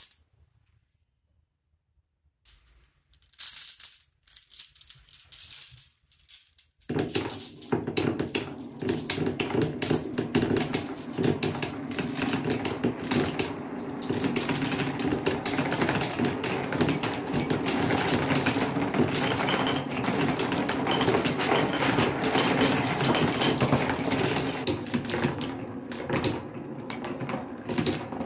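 Many glass marbles rolling and clattering down a wooden marble run, over Quadrilla spiral rails and through Cuboro beech-wood blocks. A few scattered clicks come first; then, about seven seconds in, the marbles are set going and a dense, continuous rattle takes over.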